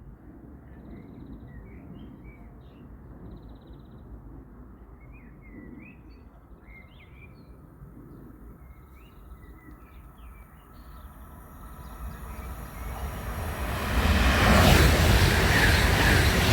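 Birds chirping over a low rumble, then a train approaching; about two seconds before the end it becomes a loud, broad rushing noise that drowns out the birds.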